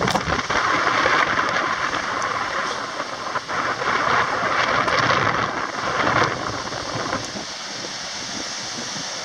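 Strong wind blowing across the microphone of a moving bicycle, mixed with its tyres rolling over a sand-covered path: a steady rushing hiss that eases about seven seconds in.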